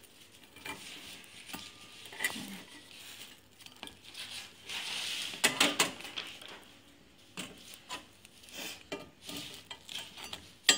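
Flat metal spatula scraping and clinking against a cast-iron pitha mould as steamed rice cakes are prised out, with scattered sharp clinks and a longer scrape about five seconds in.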